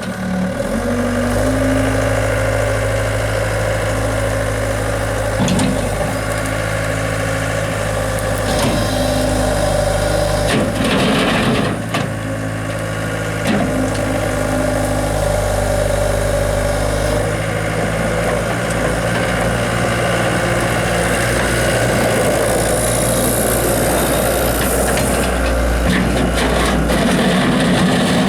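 Caterpillar 246B skid steer's four-cylinder diesel engine running steadily, its pitch shifting a few times as engine speed changes.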